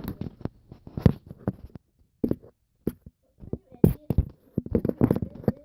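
Handling noise from a camera being moved and propped up: irregular knocks and short scraping rubs, with two brief near-silent pauses.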